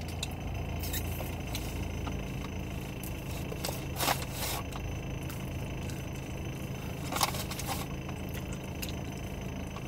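Paper bag and wrappers rustling in a few short bursts, the loudest about four and seven seconds in, over a steady low hum inside a car.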